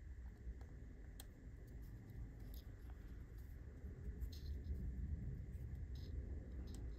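Faint small clicks and rubbing of plastic pump parts being handled and pushed together: the Ulka EP5 vibration pump's piston tube with its O-rings being fitted into the pump body, over a low steady rumble.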